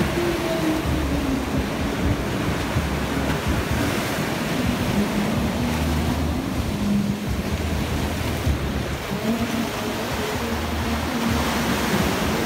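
Sea surf washing and breaking against a sloping tiled sea wall, a steady rush of water, with wind buffeting the microphone.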